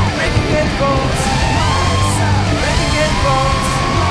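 Rock music with electric guitar.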